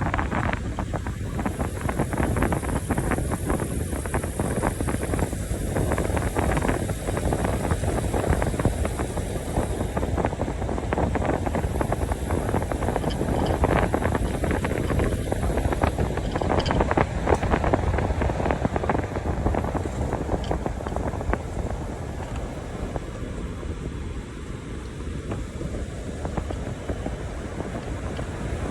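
Wind buffeting the microphone, a steady rumble with fine crackle and no let-up.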